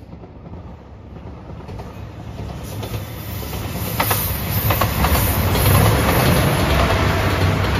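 JR Shikoku 2700 series diesel multiple unit approaching and passing close by, its engine drone growing steadily louder and loudest about six seconds in. Wheels clack over rail joints as the cars go by.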